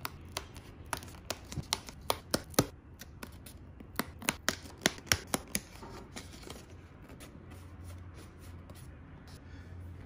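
Stiff paperboard of an instant-noodle cup and its die-cut paper wing sleeve being handled and folded out. It gives a run of sharp, crisp clicks and crackles in the first half, then soft rustling.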